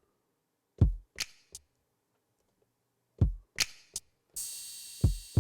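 Sliced drum samples triggered one by one from the pads of a Native Instruments Maschine MK3. A kick is followed by a snappier snare or hat hit and a small click, and the group comes twice. A cymbal rings out near the end, with a quick run of low kick hits over it.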